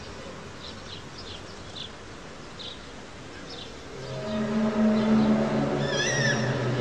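A low droning hum with a steady pitch and several overtones sets in about four seconds in and grows louder, the kind of sound posted as the 2012 'strange sounds' in the sky. Before it, faint short chirps; near six seconds, one short high wavering call.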